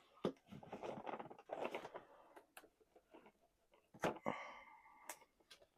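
Cardboard and plastic packaging of a boxed action figure being handled: faint crackling rustles and sharp clicks, with a short scraping squeak about four seconds in.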